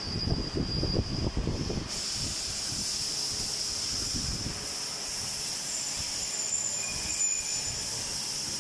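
CNC machine and autoloader running in a workshop: a steady, high-pitched mechanical hiss. Low, irregular rumbling noise on the microphone fills the first two seconds.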